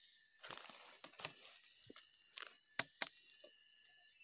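A few faint, sharp clicks and taps of a screwdriver working on a chainsaw's plastic recoil starter housing, the starter having failed, over a steady high chirring of insects.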